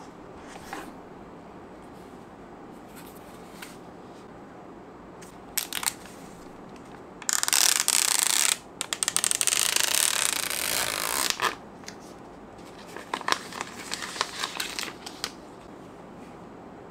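Clear plastic protective film being peeled off a new smartphone: a loud crackling peel lasting about four seconds midway, then lighter crinkling as the loose film is handled.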